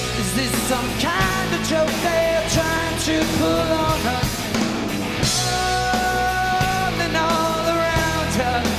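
Rock band playing live, with guitars, bass and drums under a lead singer holding long sung notes.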